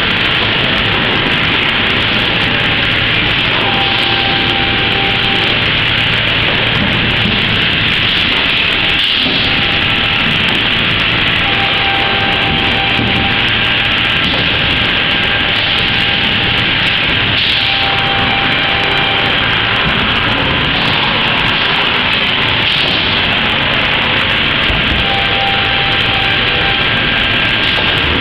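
Steady, loud machinery noise of Techmik belt conveyors running, carrying wood offcuts and thin strips along the belts.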